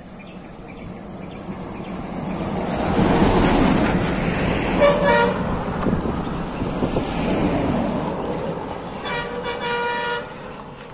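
Road vehicles passing close by, their noise swelling and then fading away, with vehicle horn toots: a brief toot about five seconds in and a longer, steady horn lasting about a second near the end.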